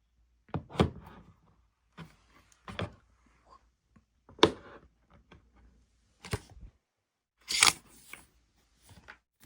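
Clicks and knocks of a tablet and its accessories being handled and set down: about five sharp taps spaced a second or two apart, the one near the end with a brief sliding rustle.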